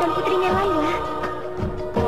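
Background music from a drama's score: held, sustained tones under a wavering melody line, dipping slightly in loudness near the end.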